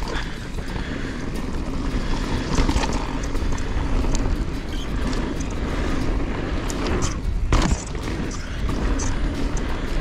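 Canyon Strive enduro mountain bike rattling and clattering over rocks on a descent, with wind buffeting the helmet camera's microphone. A sharper knock comes about seven and a half seconds in.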